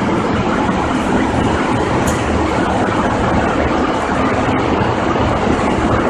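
Laminar-airflow compounding hood's blower running, a steady loud rush of air.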